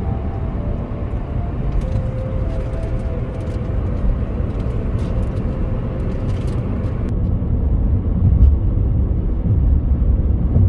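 Steady low rumble of road noise heard from inside a car as it drives along the highway.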